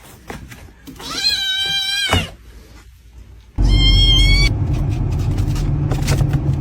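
A cat meowing twice: a long meow about a second in, then a shorter, higher meow at about three and a half seconds. The second meow comes with a sudden loud low rumbling noise that carries on to the end.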